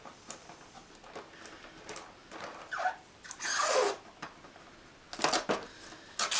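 Small plastic statue parts being worked out of their packaging by hand: scattered light clicks and scrapes, a longer rustling scrape about three and a half seconds in, and a quick cluster of clicks around five seconds in.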